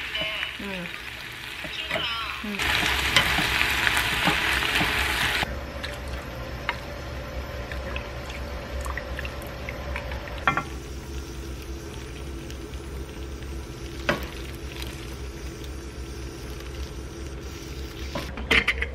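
Marinated spicy pork and vegetables sizzling in a frying pan as they are stir-fried with tongs, the sizzle loudest from about three to five seconds in. Utensils click against the pan now and then, with one sharp knock about fourteen seconds in.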